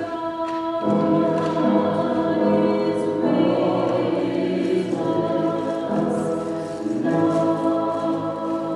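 Church choir singing an anthem in parts, holding long notes that change pitch every second or so.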